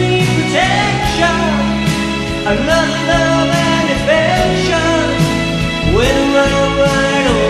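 Pop cover song with a male lead vocal over a full band backing track, the singer drawing out long held notes; one long wavering note is held near the end.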